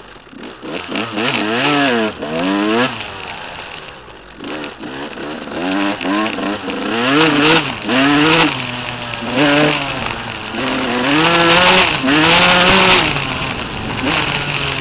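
Dirt bike engine revving as the bike is ridden. It climbs sharply in pitch in the first few seconds, then swells up and drops back about once a second as the throttle is worked on and off.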